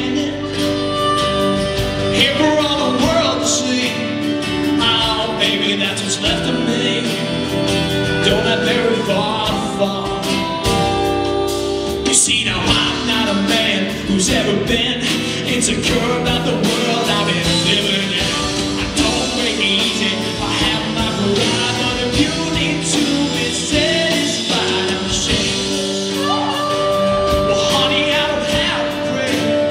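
A live band plays a ballad with a male lead voice singing over acoustic and electric guitars, bass, keyboards and drums.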